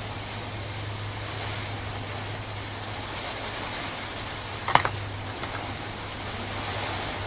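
Steady hiss of heavy rain under a constant low hum, with a sharp click about two-thirds of the way through and a couple of lighter ticks just after it.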